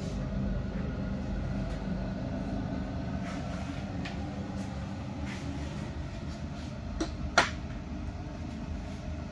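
Steady low hum in the room, with a few faint clicks and two sharper clicks about seven seconds in as a clip-on thermal imaging device on its screw-on adapter is handled and fitted onto a riflescope.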